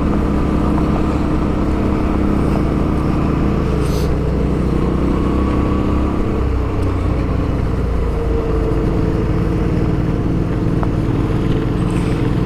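2008 Suzuki V-Strom 650's V-twin engine, fitted with a Delkevic aftermarket exhaust, running steadily as the bike rides along a gravel road, with wind and tyre noise. The engine note eases slightly about four seconds in, then picks up again.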